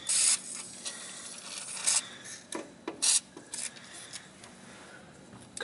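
Aerosol can of WD-40 spraying penetrating oil onto rusty exhaust bolts in several short hissing bursts; the first burst and one about three seconds in are the loudest.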